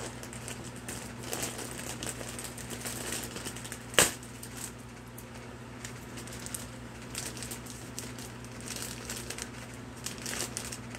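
A plastic poly mailer bag crinkling as it is handled and opened by hand, with one sharp snap about four seconds in. A steady low hum runs underneath.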